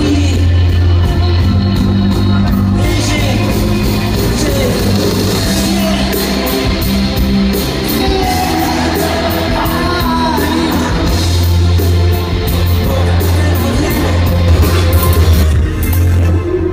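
A live rock band playing, with a singer over drums, electric guitar and a heavy bass line. The music changes near the end.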